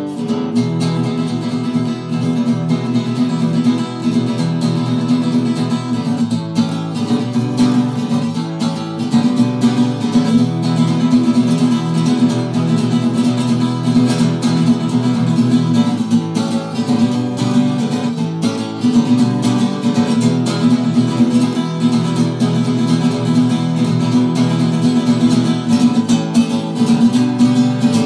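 Background music: an acoustic guitar track with strummed and plucked strings and a steady beat.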